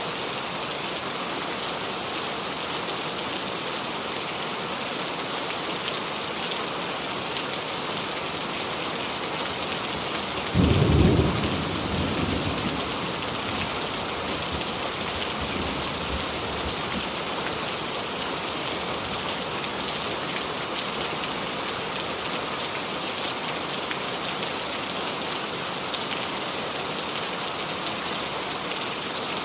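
Steady heavy rain falling on a roof, with a sharp clap of thunder about a third of the way in whose low rumble fades over a couple of seconds.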